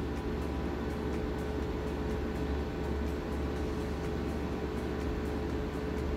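A steady mechanical hum, like a fan or appliance running, with a constant low drone and a thin steady mid-pitched tone.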